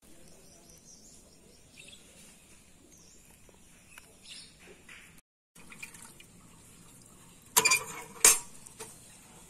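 Two loud clanks of a metal pan near the end, about two-thirds of a second apart, each ringing briefly. Before them only faint wet sounds.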